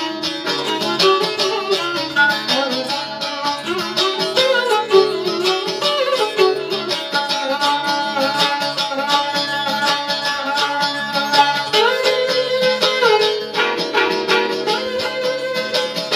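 Background music in a traditional folk style: plucked strings over a steady beat, with a melody line that glides up and down.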